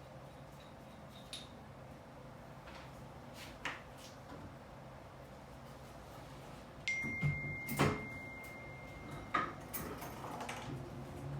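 Scattered light knocks and clicks of hand work, with a steady high beep lasting a couple of seconds about two-thirds of the way in, over a low hum.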